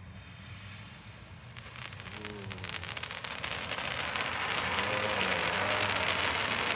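Handheld fountain firework spraying sparks: a loud crackling hiss that builds up from about two seconds in and then holds steady.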